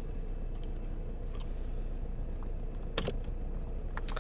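Plastic clips of a headlight switch assembly being pried loose with a flathead screwdriver: one sharp click about three seconds in and two quick clicks near the end, over a steady low background hum.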